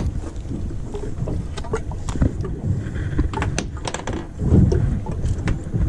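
Steady low rumble on an offshore fishing boat, with scattered small clicks and taps as a freshly landed porgy is handled.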